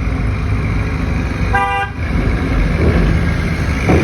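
Truck engine running steadily, with a short horn toot lasting under half a second about a second and a half in.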